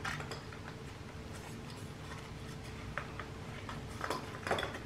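Faint clicks and rubbing of a metal electrical back box and its cables being handled and pushed into a recess in the wall, with a few sharper knocks in the last second.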